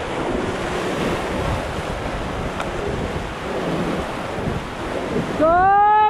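Rushing white water of a river rapid with wind buffeting the microphone. Near the end a loud rising shout cuts through.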